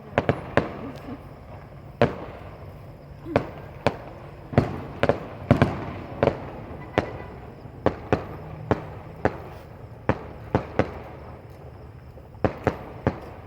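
Fireworks going off: a long run of sharp, irregularly spaced bangs, about two a second, some in quick pairs.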